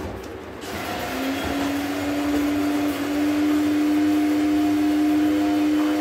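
A sharp click, then a machine starts up less than a second in and runs steadily with a loud droning hum.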